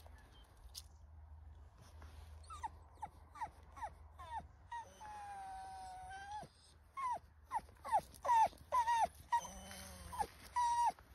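Staffordshire bull terrier whining: a string of short, high whines, each falling in pitch, with one longer held whine in the middle. The whines come quicker and louder near the end.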